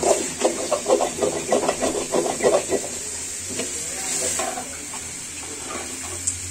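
Metal spoon stirring and scraping chicken curry around a metal pan: a quick run of scrapes for about three seconds, then a quieter sizzle of the meat frying over the gas flame as it dries down in its masala.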